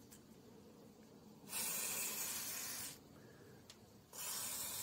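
WD-40 aerosol can on its broad-spray setting, spraying lubricant onto a metal toilet-seat hinge in two short bursts of hiss, each about a second and a half long, the first about one and a half seconds in and the second about four seconds in.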